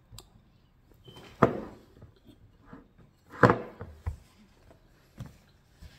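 Tableware clacking while eating: a metal spoon knocks against a ceramic bowl twice, sharply, about two seconds apart, with a couple of quieter taps after.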